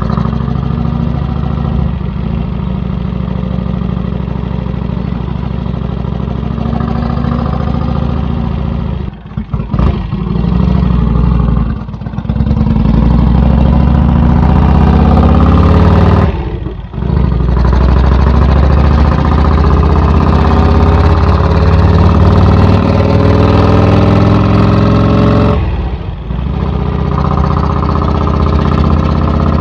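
Vincent 1000cc V-twin motorcycle engine with an open straight-through exhaust, heard from the rider's seat while riding. It runs steadily at first, then drops away briefly four times, and between the drops its note climbs as the bike accelerates.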